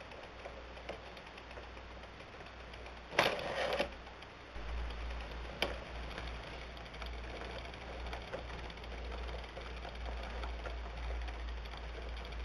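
Hand-cranked wooden automaton's hand-cut wooden gears, cams and levers ticking and clicking irregularly as the crank is turned, with a louder noisy clatter of under a second a little over three seconds in and a sharp click near the middle.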